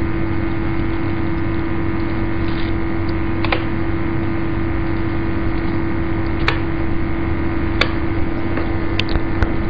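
Steady electrical mains hum and hiss from the recording chain, with about five light, sharp clicks spread through the second half: computer mouse clicks and key presses as numbers are typed into a form.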